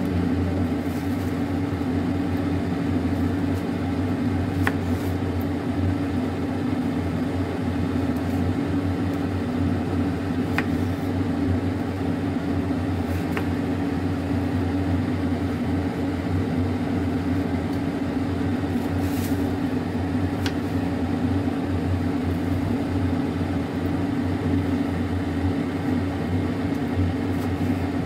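A steady mechanical hum from a running kitchen appliance, with a few faint light ticks as a knife cuts through tomatoes on a chopping board.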